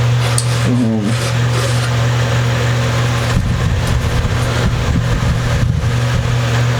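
Steady, loud low mechanical hum at one fixed pitch, with irregular low rumbling from about three to six seconds in.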